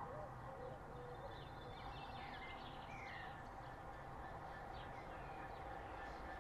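Small birds chirping, with short sliding calls through the middle, over a faint steady low rumble and hum from a distant approaching diesel freight locomotive.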